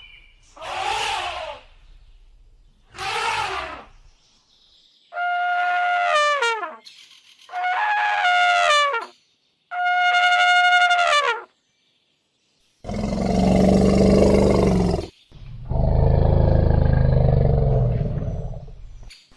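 African savanna elephant calls: two short rough calls, then three trumpet blasts of about a second and a half each, holding a pitch and then falling away at the end, followed by two long, deep, rough calls of two to three seconds.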